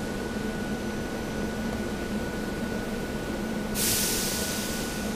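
SEPTA Regional Rail electric train standing at the platform, giving a steady hum with a thin high whine. About four seconds in, a loud hiss of released air from its air brakes starts and runs for over a second.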